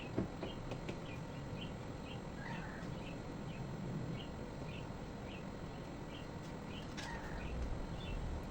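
Short high chirps repeating steadily, about two a second, likely a bird calling. There is a sharp knock just after the start and a couple of fainter clatters later.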